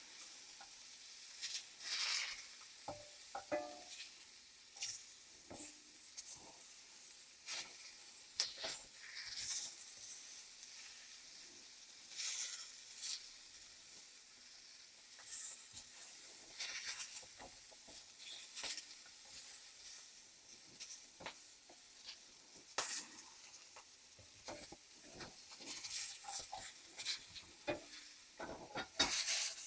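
Shrimp frying in hot oil in a stainless steel pan: a steady faint sizzle with scattered crackles and pops throughout.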